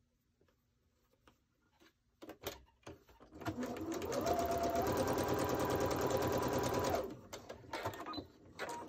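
Domestic electric sewing machine stitching a seam corner to corner across a small quilt square: after a few light handling clicks, it runs at a fast, even stitch rate for about three and a half seconds, speeding up as it starts, then stops, followed by a few more light clicks.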